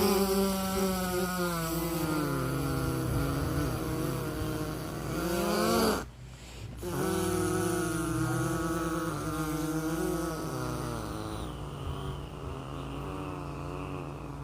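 Low, wavering droning tones presented as the sound of the planet Uranus, their pitch sliding slowly up and down. They come in two long swells with a short break about six seconds in.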